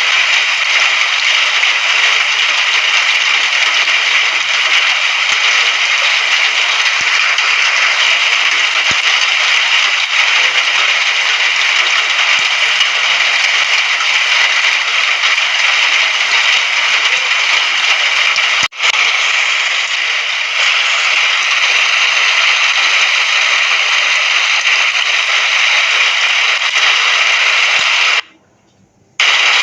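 Steady hiss of heavy rain, even and continuous. It cuts out briefly about two-thirds of the way through, and again for about a second near the end, like a splice in a looped recording.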